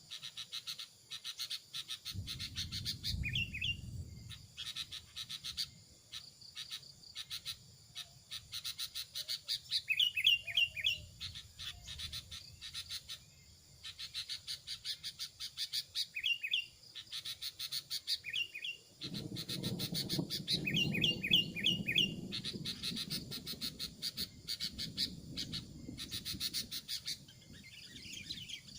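Small birds calling: a rapid, continuous run of sharp chips and chirps, broken by repeated clusters of short down-slurred whistled notes. A low rumble comes in twice, briefly near the start and for several seconds in the second half.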